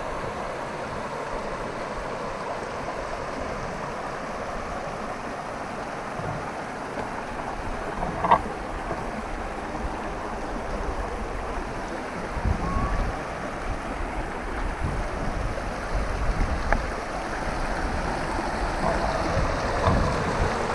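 Boone Fork creek running over rocks in small cascades: a steady rush of water. From about halfway through, wind buffets the microphone with a low rumble, and there is one brief sharp click about eight seconds in.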